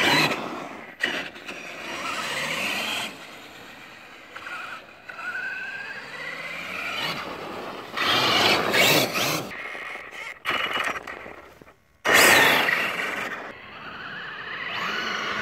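Electric RC monster truck running on ice and snow: its motor whines up and down in pitch as it speeds up and slows, while the screw-studded tires scrape over the ice. There are two louder stretches of hard acceleration and scraping, about halfway through and about three-quarters of the way in.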